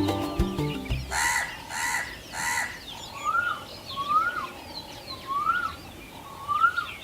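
Background music fades out, then a crow caws three times, harsh and evenly spaced. It is followed by four short rising calls about a second apart, typical of a cuckoo, over faint twittering of small birds.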